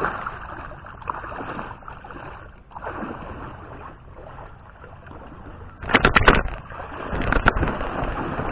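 Shallow water lapping against a beached kayak, with a quick cluster of knocks and rattles about six seconds in and another shortly after.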